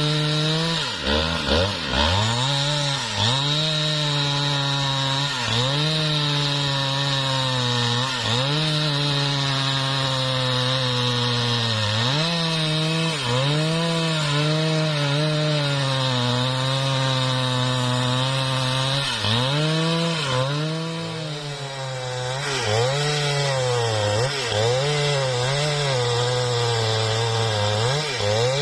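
Husqvarna 395XP two-stroke chainsaw running near full throttle while ripping lengthwise through mahogany, its engine note sagging and recovering again and again as the chain bites into the wood, with a longer, deeper sag about two-thirds of the way through.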